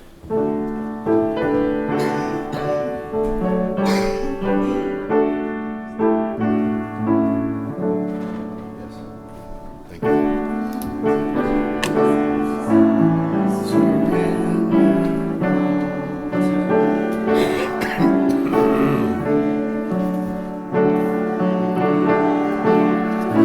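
Piano playing a hymn tune, the accompaniment for congregational singing. It starts about a second in, softens briefly near the middle, then comes back fuller.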